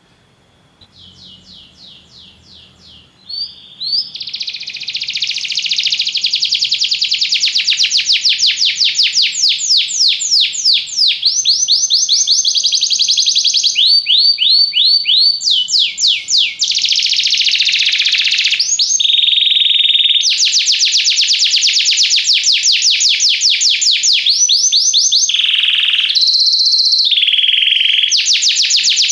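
Domestic canary singing: a long song made of rapid trills, each a fast run of identical repeated notes, changing from one trill to the next. It starts soft about a second in and is loud from about four seconds in.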